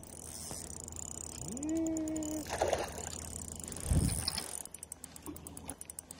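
Spinning reel giving fast ratchet-like ticking while a hooked fish is played on a bent rod, with one dull thump about four seconds in.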